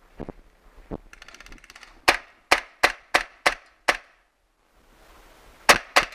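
Airsoft gun firing single shots in quick succession: six sharp shots about a third of a second apart, a pause of nearly two seconds, then two more near the end.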